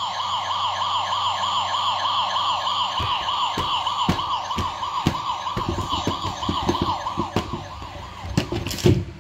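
A warbling electronic siren sound, wavering rapidly up and down about four times a second, fading out near the end. Soft thumps and knocks of plush toys being handled against a plastic box come in from about three seconds in.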